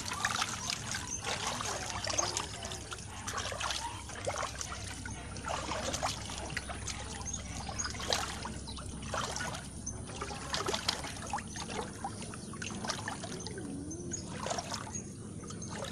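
Shallow floodwater splashing and trickling in irregular, uneven bursts.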